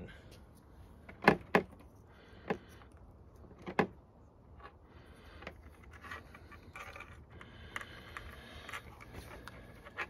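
Wire being cut down with a few sharp snips in the first four seconds. Then yellow tape is peeled off the roll and wrapped around the spliced wire connections, with a quieter crackly peeling sound.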